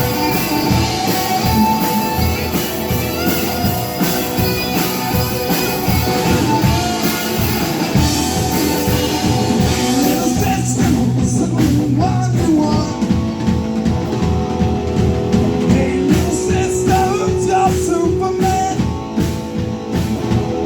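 Live rock band playing, with guitar and drum kit.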